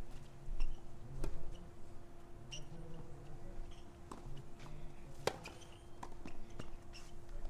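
Tennis balls struck by rackets and bouncing on a clay court: a scattering of short, sharp knocks, the loudest about five seconds in, over a steady faint hum.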